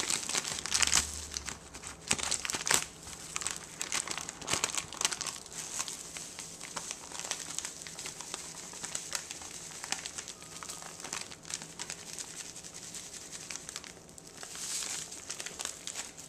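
Clear plastic bag crinkling and rustling in the hands as cornmeal is poured from it into a mixing bowl, busiest in the first few seconds and again near the end.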